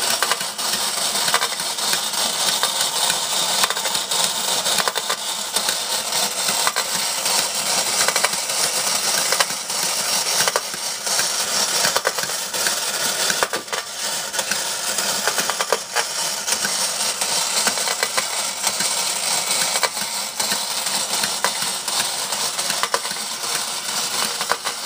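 Marx Merry Makers tin wind-up mouse band running on its spring motor: a steady, fast metallic clatter of tin parts and clockwork, with many small clicks, holding at an even level throughout.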